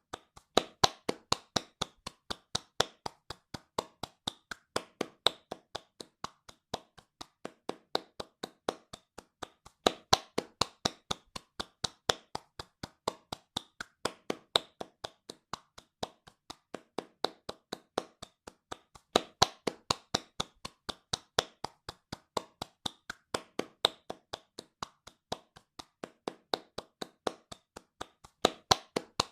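Hands clapping fast and steadily, about four to five claps a second, with the claps growing louder and softer every few seconds.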